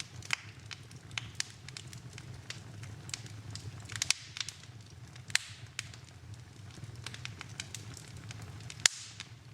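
Wood fire burning in a fireplace: irregular crackles and sharp pops over a low, steady rush of flame, with a few louder snaps about four, five and nine seconds in.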